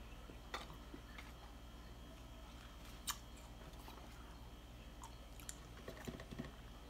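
Faint chewing of food in a quiet room, with a few soft clicks and ticks, the sharpest about three seconds in and a small cluster near the end.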